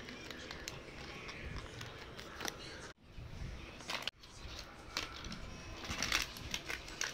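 Cocker spaniel puppy chewing on a piece of crinkly clear plastic, which gives off irregular crackles and clicks that are loudest near the end.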